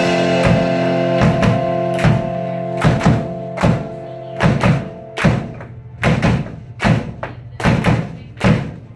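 Live rock band: a held chord rings out and fades away over about five seconds while the drum kit keeps a steady beat of about one hit every three-quarters of a second. The beat carries on alone after the chord dies.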